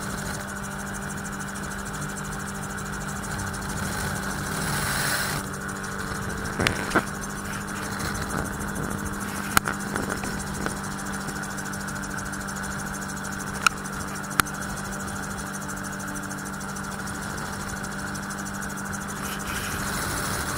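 Magni M16 autogyro in cruise flight: its engine and pusher propeller drone steadily under a rush of air noise. There is a brief louder gust of noise about four to five seconds in, and a few sharp clicks in the middle.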